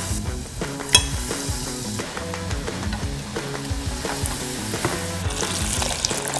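Batter-coated shredded dried squid deep-frying in hot oil: a steady sizzle while chopsticks stir it. There is a sharp click about a second in, and the sizzle grows louder near the end.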